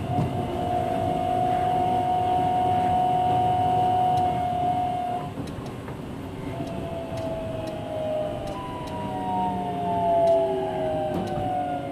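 Onboard running sound of a Seaside Line 2000 series rubber-tyred automated guideway train. Its Toyo IGBT VVVF inverter whines in a steady tone for about five seconds, then in several tones gliding downward, over the low rumble of the moving car.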